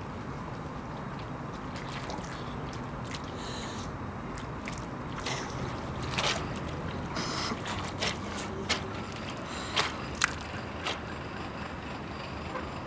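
Baby clothes being washed by hand in a plastic basin of water: a series of irregular splashes and sloshes as the cloth is dipped and wrung, over a steady low background hum.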